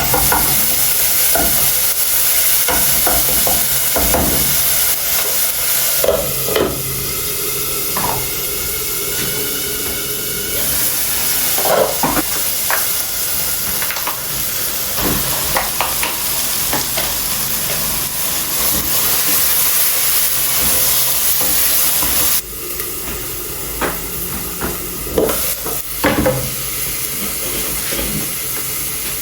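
Food sizzling in a hot pan while being stirred, a steady hiss with scattered short knocks and scrapes of the utensil against the pot.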